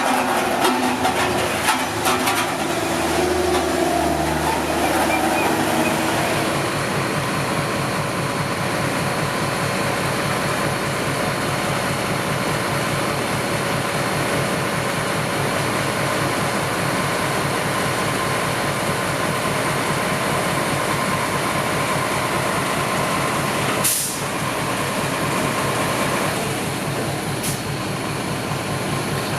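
Heavy diesel construction machinery running steadily with an even engine beat, and one brief sharp noise about three-quarters of the way through.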